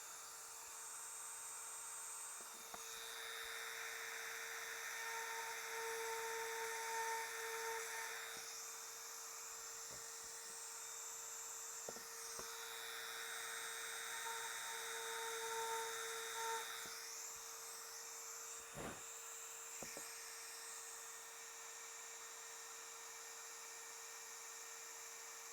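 Dremel rotary tool running steadily at high speed. Twice it turns to a rougher grinding, from about three to eight seconds in and again from about twelve to seventeen seconds, as the bit cuts into cured resin in the mold to drill out a trapped air bubble.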